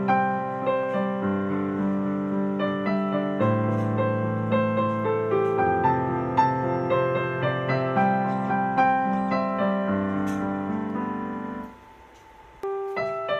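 Background piano music, with notes struck one after another at an even pace. It breaks off briefly near the end and then resumes.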